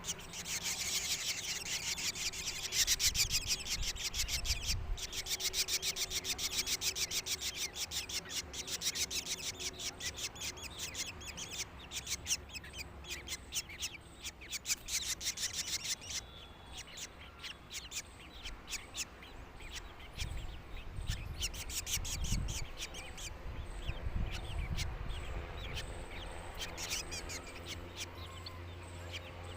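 Birds chirping in rapid, high, repeated calls, several a second, packed closely for the first half and sparser after that. Low rumbles come and go in the second half.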